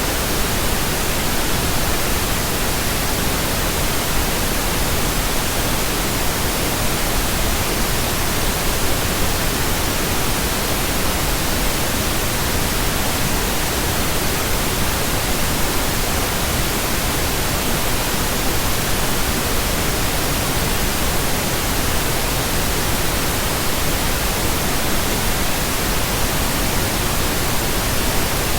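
Electronically generated pink noise: a steady, even hiss that does not change in level or tone.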